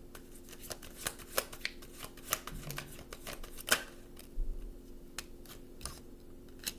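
A deck of oracle cards being shuffled by hand: a run of quick crisp clicks and flicks, busier in the first half and sparser later, as a new card is laid down on the wooden table.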